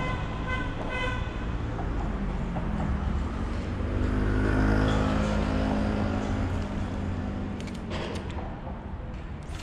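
Road traffic: a vehicle passing close by, its low rumble swelling to a peak about halfway through and then fading, over steady traffic noise. A short run of high beeps sounds at the start, and a few sharp clicks come near the end.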